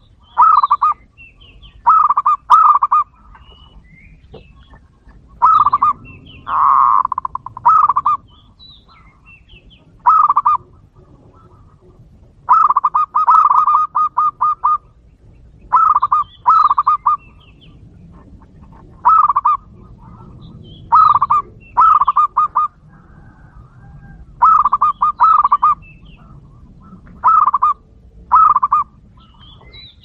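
Zebra dove cooing: loud, rapid staccato coo notes in short bursts of two to six, repeated every second or two, with one longer drawn-out note about seven seconds in.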